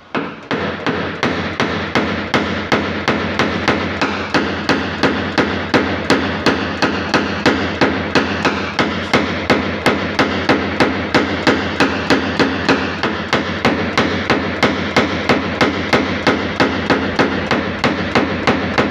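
Paintless dent repair tap-down: a small hammer striking a tap-down punch against a car's sheet-metal panel in an even run of about three taps a second, knocking the metal around a dent down level.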